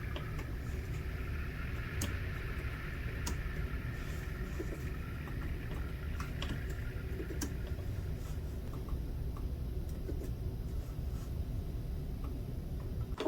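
Steady low rumble or hum, like a machine or fan running, with a few light clicks and taps.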